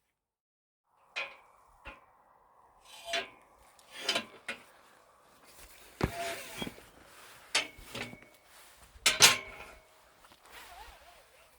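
A series of about ten irregular sharp knocks and clanks, several followed by a brief metallic ring, starting about a second in; the loudest is a double knock about nine seconds in.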